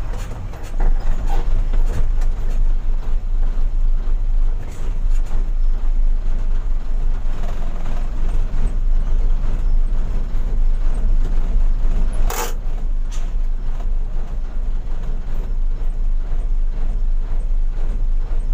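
Fuso truck's diesel engine running, heard inside the cab as a steady heavy low hum that grows louder about a second in. A single sharp click comes about twelve seconds in.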